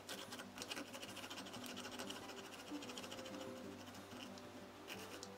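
A small hand file rasping on metal inside a drilled hole, a fast scratchy rasp that runs from just after the start to about three and a half seconds in. Soft background music plays under it.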